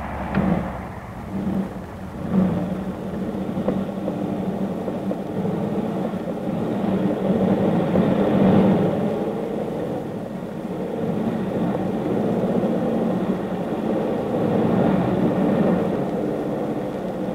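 Steady, rough engine drone, with a few short louder bumps in the first few seconds and a slight swell about halfway through.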